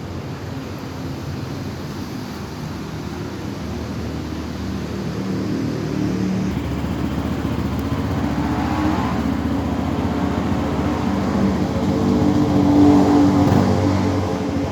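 KTM Duke motorcycle engine running, growing gradually louder to a peak about thirteen seconds in, then easing slightly.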